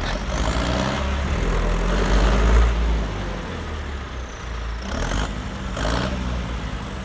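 Diesel engines of a farm tractor and a TAF log skidder running under load as the tractor tows the skidder on a cable through snow. The low rumble swells about two to three seconds in, then eases, with two brief higher sounds about five and six seconds in.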